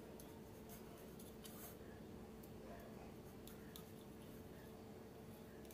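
Faint clicks and short scrapes of a knife cutting through a layered egg-and-dosa pola, the blade tapping and scraping the ceramic plate beneath, over a faint steady hum.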